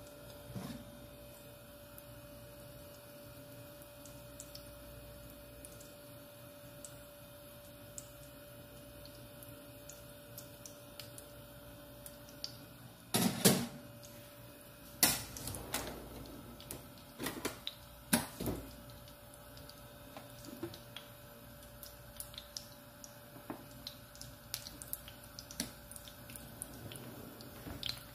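A steady faint hum, then about halfway in a few seconds of loud clinks and knocks of a bowl and utensil against a nonstick frying pan as pancake batter goes in, followed by faint scattered ticks.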